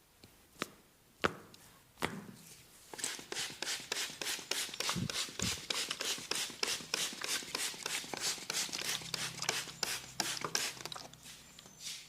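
A masseur's hands striking the body in fast percussive massage strokes, about five quick slaps a second in an even rhythm, after a few single taps at the start.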